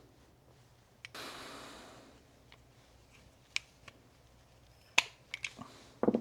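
Small parts of a lawn mower carburetor being handled and taken apart: a click and a brief hiss fading away about a second in, then a run of sharp clicks and taps, the loudest about five seconds in and a quick cluster at the end.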